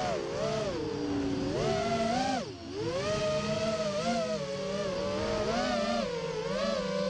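FPV quadcopter's brushless motors and propellers whining, picked up by the onboard camera, the pitch rising and falling with the throttle. About two and a half seconds in the throttle is chopped, and the whine drops sharply before it climbs again.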